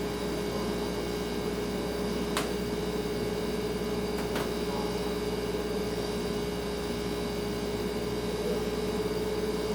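Refrigerator running, a steady hum with one constant tone over a low drone and a soft hiss. Two faint ticks come about two seconds apart.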